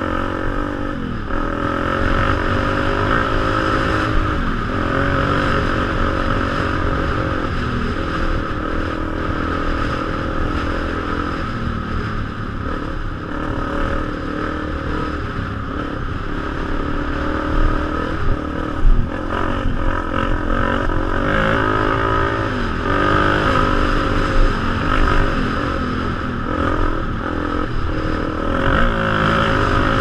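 Enduro dirt bike engine running under way, its revs rising and falling as it is ridden over rough trail, with a few knocks and clatter from the terrain.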